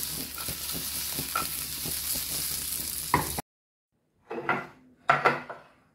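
String beans and green sweet pepper sautéing in olive oil in a frying pan, sizzling steadily with light scrapes and taps of stirring. The sizzle cuts off suddenly about three and a half seconds in, and two short, louder sounds follow near the end.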